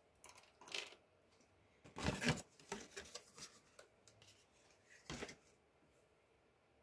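Short rustles and small clicks of jewelry and its packaging being handled on a table: a few separate bursts, the loudest about two seconds in, a run of light clicks after it, and one more rustle about five seconds in.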